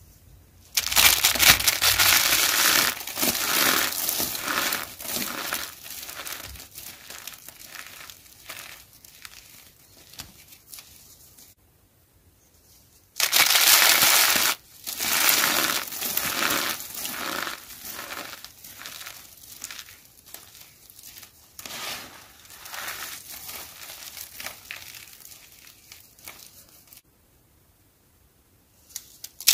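Dry, starch-coated soap roses made of thin curled soap strips being crushed in both hands: dense crunching and crackling. It starts suddenly about a second in and thins out over about ten seconds, stops briefly, then a second crush starts loud again and tapers off, with a short quiet spell near the end.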